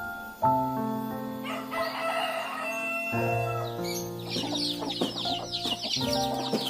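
Soft instrumental music with held notes, over which a rooster crows about a third of the way in. A fast run of high chirps follows from a little past the middle.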